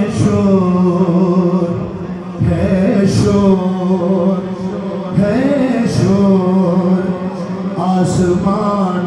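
A man reciting a manqabat, a devotional Urdu poem in praise of Imam Ali, in a chanting sung style into a handheld microphone, holding long notes in phrases of two to three seconds.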